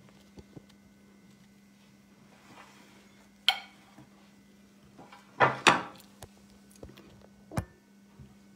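Handling noise from a phone being moved and set in place: a few short knocks and bumps, the loudest pair about five and a half seconds in, over a faint steady hum.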